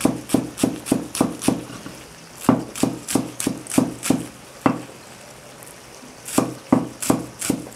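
Cleaver chopping spring onions on a thick round wooden chopping block: quick knocks about three a second, in three runs with two short pauses between them.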